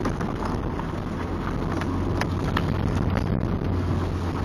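Nissan 240SX's 2.4-litre four-cylinder engine and exhaust running steadily while the car is driven on the road, a low, even drone that grows a little louder near the end. The leaking gasket at the catalytic converter flange has been freshly replaced, leaving only a tiny leak that the owner puts down to a slightly warped flange.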